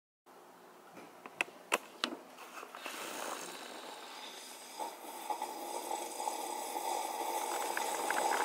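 A man drinking at length from a tumbler: a few light clicks from handling the cup about a second in, then a steady, throaty gulping sound that slowly grows louder.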